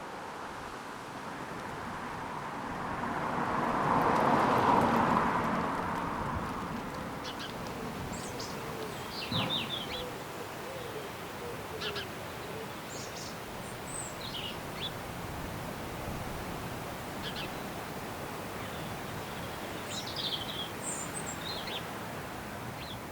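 Small birds chirping and calling in short, scattered bursts over a steady rush of wind. A louder rushing swell rises and fades a few seconds in.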